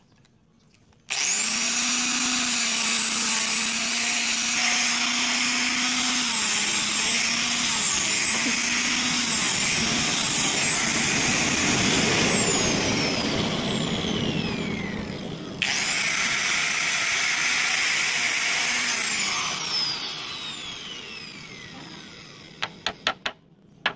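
Handheld angle grinder with a sanding disc switched on about a second in, running with a high whine that dips briefly as wood slats are pressed against it. It is switched off and spins down, starts up again, then coasts down once more, followed by a few sharp knocks near the end.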